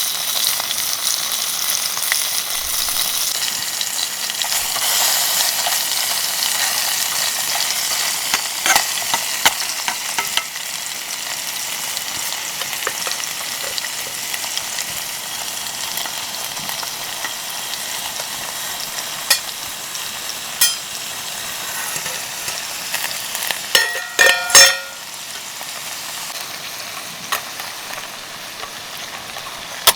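Food sizzling in a pan over a campfire, a steady frying hiss with scattered clicks of a utensil. A short run of ringing metallic clinks comes about three-quarters of the way through.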